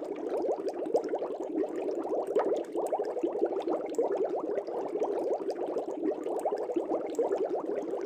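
Aquarium air bubbles rising and bubbling steadily through the water, a dense stream of quick little blips.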